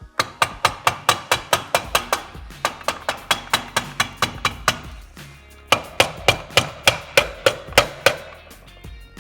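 Repeated hammer blows, about three a second, in two quick runs with a short pause about five seconds in.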